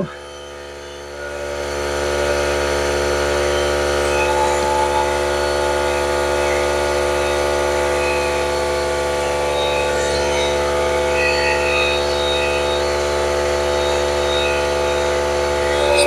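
Air compressor for a pneumatic nail gun kicking on about a second in and running with a steady hum, refilling its tank.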